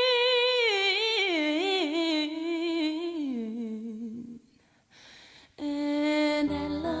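A high, solo female voice singing without accompaniment: one long held note that wavers and slides down in a run, breaking off a little past halfway. After a short pause a new, lower note starts, and piano and other instruments come in near the end.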